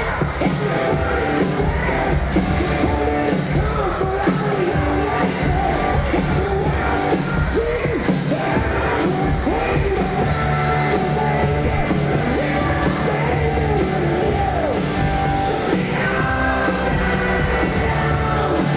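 Rock song with a singing voice and guitar over a steady beat, with faint yells and crowd noise underneath.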